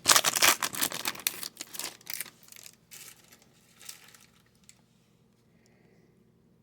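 Foil wrapper of a hockey card pack being torn open and crinkled. The crackling is dense for the first two seconds or so, then thins to a few soft rustles.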